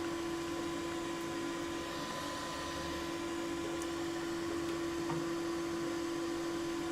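Toilet cistern refilling after a flush: the fill valve lets in water with a steady hiss and a constant humming tone.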